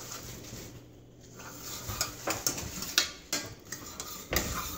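A utensil stirring onions and garlic in butter in a stainless steel saucepan, scraping and knocking against the pan. Quiet at first, then several sharp scrapes and clinks from about two seconds in.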